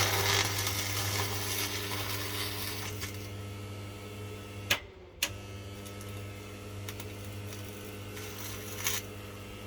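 Sewing machine motor overdriven on 400 V, running with a strong mains hum under a rough grinding noise from its failed bearing, the noise slowly easing. About five seconds in, it cuts out for half a second with a click and then runs on steadily.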